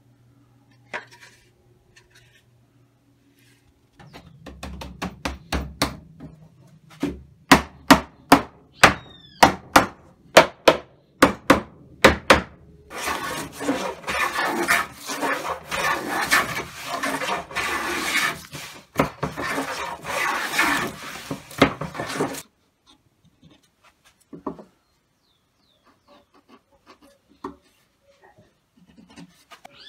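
Hand woodworking: a run of sharp knocks about two a second, then about ten seconds of a hand plane shaving along the edge of a wooden tabletop in repeated strokes, shaping it for a breadboard end. The shaving stops suddenly, and only a few small clicks follow.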